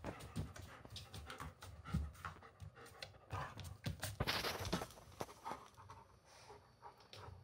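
German shepherd panting in quick, uneven breaths, with scattered sharp clicks and taps.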